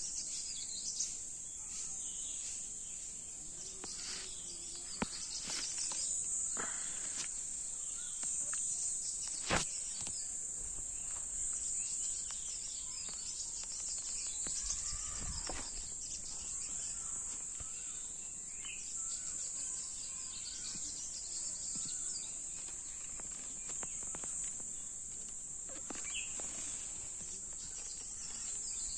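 A steady, high-pitched chorus of insects droning without a break, with a few short bird chirps over it. A couple of sharp clicks stand out, the loudest about nine and a half seconds in.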